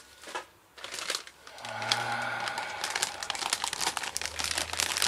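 Plastic snack packaging crinkling and rustling as it is handled, growing louder about a second and a half in.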